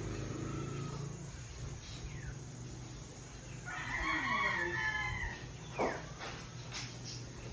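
A rooster crowing once, a single call of over a second starting about three and a half seconds in, over a low steady background hum.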